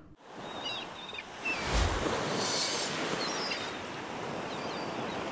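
Ocean surf washing onto a beach: a steady rush of breaking waves that swells loudest about two and a half seconds in.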